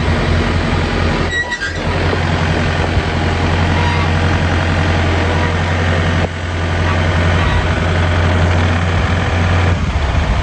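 Tractor engine running steadily at idle, with a strong low hum and a brief dip in level about six seconds in.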